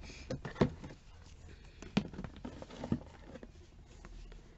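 Small plastic talc and deodorant containers set down on a tabletop and handled, giving a few light knocks (the clearest about half a second, two seconds and three seconds in) with soft handling noise between.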